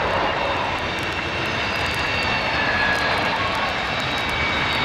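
Kawasaki C-1 transport's twin turbofan jet engines running on the ground: a steady jet rumble with high whining tones that drift slowly in pitch.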